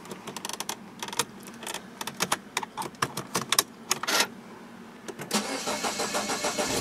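A run of clicks and key rattles, then about five seconds in the Mini Cooper's 1.6-litre four-cylinder engine cranks and starts.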